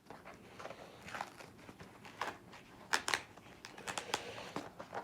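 Cardboard box being ripped open by hand, irregular tearing and crinkling as the taped box is pulled at, with the sharpest rips about three seconds in.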